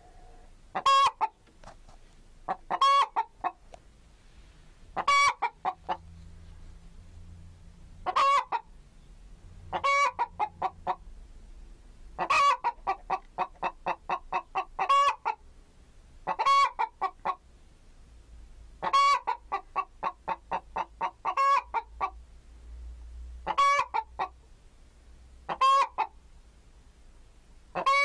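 Domestic chicken calling: a loud, short call about every two to three seconds, several of them trailing off into a quick run of short clucks.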